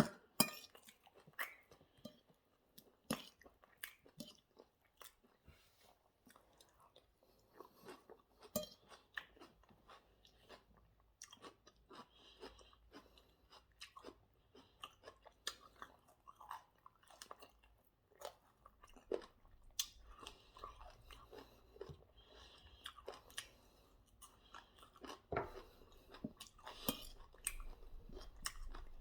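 A person chewing and crunching chicken wings and salad close to the microphone: irregular sharp mouth clicks and crunches with short pauses between bites.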